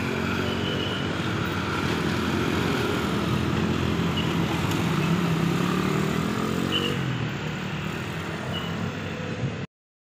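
Road traffic: a motor vehicle engine, motorcycle-like, running with its pitch rising and falling, dropping away about seven seconds in, with a few short high chirps over it. The sound cuts off suddenly near the end.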